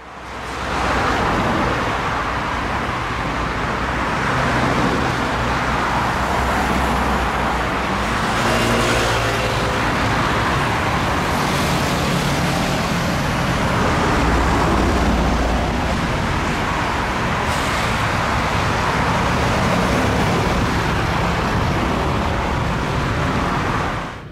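Steady road traffic noise from cars passing along a busy seafront road, fading in over the first second, with one vehicle accelerating past about eight seconds in.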